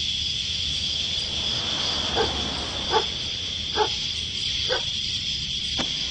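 Steady high chirring of night insects, with a dog barking five times, short single barks about a second apart.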